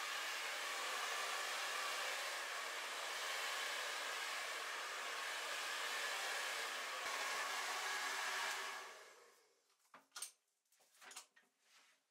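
A hand-held hair dryer blowing with a steady rushing whir, then dying away about nine seconds in. A few light clicks and knocks follow.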